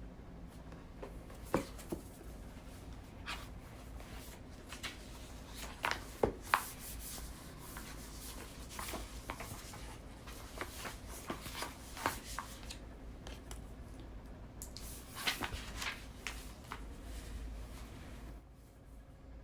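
Desk study sounds: a pen or pencil scratching on paper and paper being handled, with scattered small taps and clicks of stationery on the desk, the sharpest a few about six seconds in.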